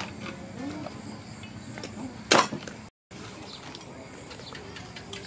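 A single sharp knock about two seconds in, over faint background noise; the sound drops out completely for a moment just after.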